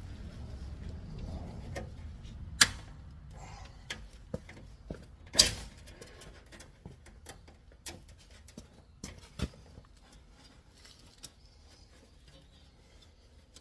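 Hand work on a riding lawnmower's parts: scattered light metal clicks and taps, with two sharp knocks a few seconds apart near the start.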